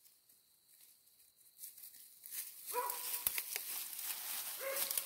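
Rustling and crackling through dry brush and leaves that starts about a second and a half in, with two short whimpers from the hunting dog, one near the middle and one near the end, and a single knock between them.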